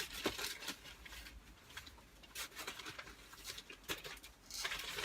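Irregular small clicks, taps and rustles of a meal being eaten: cutlery and food containers handled.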